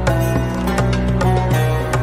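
Background instrumental music in a traditional style: quick plucked string notes over a steady low drone.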